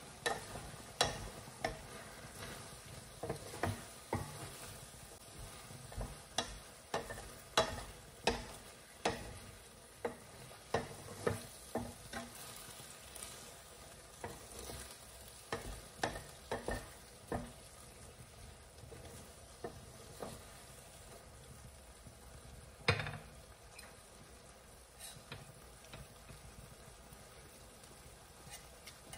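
Chicken and capsicum frying in a pan while a utensil stirs and knocks against the pan, with many knocks in the first half and one louder knock later, over a steady low sizzle.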